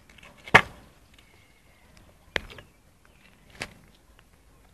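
Three sharp knocks on a paved sidewalk, the first the loudest: blows struck in trying to break up the remains of a glass bottle.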